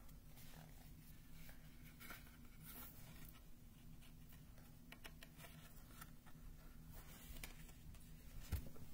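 Near silence: faint clicks and rustles of a cardboard board book being handled and its page turned, over a low steady room hum.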